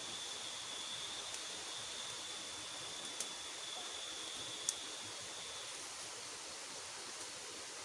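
Steady rush of a flowing river, with a thin, steady high whine over it that fades out about six seconds in. A few sharp clicks sound over it; the loudest comes just before five seconds in.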